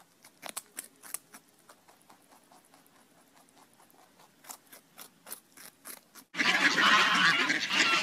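A small pet crunching on a raw carrot: a quick run of faint, crisp bites. About six seconds in, a flock of ducks breaks in suddenly with loud honking and quacking.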